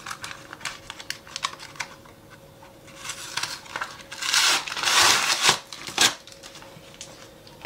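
Plastic food packaging being handled and crumpled: a run of light clicks and crackles, then louder rustling about four to five and a half seconds in and a sharp knock at about six seconds.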